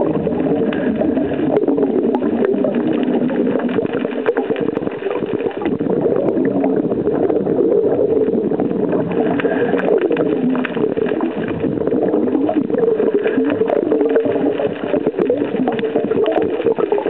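Underwater water noise: a steady muffled rush with many scattered sharp clicks throughout.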